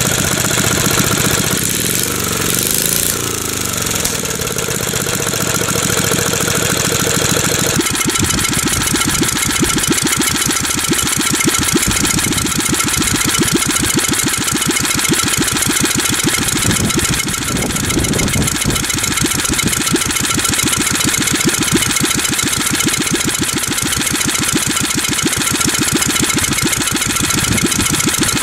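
Tecumseh H30 3 hp single-cylinder engine running straight-piped, with no muffler on its short exhaust elbow, in a fast, even train of exhaust pops. It is missing now and then; the owner puts this down to heavy blow-by since the engine seized from running low on oil. The sound changes abruptly about eight seconds in.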